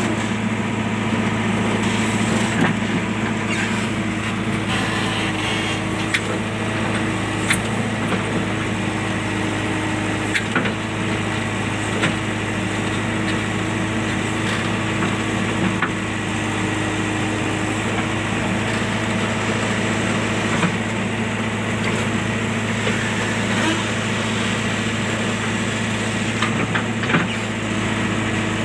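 A JCB machine's diesel engine running steadily, with scattered clicks and knocks, and a further steady tone joining about five seconds in.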